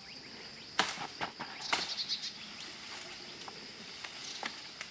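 Sharp snaps and rustles of leafy tree branches being broken or cut for fodder, several in the first two seconds, over a steady high insect drone.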